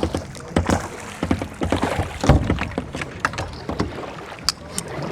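Kayak being paddled: splashing paddle strokes with irregular knocks and clunks.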